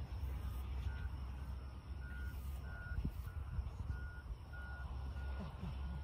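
Faint electronic beeping: a short, high tone repeating about every half second or so, starting about a second in, over a steady low rumble.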